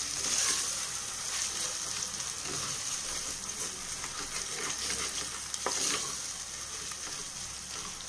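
Onions, green chillies and ginger-garlic paste frying in oil in an aluminium pressure cooker on low heat: a steady sizzle, with the spoon stirring and scraping against the pot.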